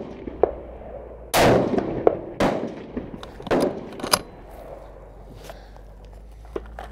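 A single loud 6mm Creedmoor rifle shot with a ringing tail about a second in. It is followed by a few sharp metallic knocks and clicks as the bolt is worked.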